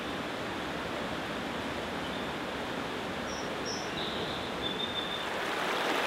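Fast mountain forest stream rushing over rocks and through whitewater rapids: a steady, even rush of water.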